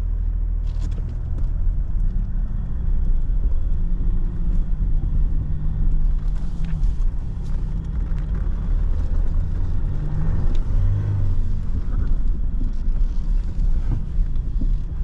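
Jeep Wrangler's 3.0 L EcoDiesel V6 running at low revs, heard from inside the cab as the Jeep creeps forward through deep snow. Its low hum shifts a little in pitch with the throttle partway through.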